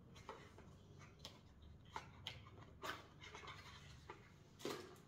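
Faint handling of a small cardboard jewellery gift box: a few light taps and clicks with soft scratchy rustling as its lid comes off and the box is moved. The last tap, near the end, is the loudest.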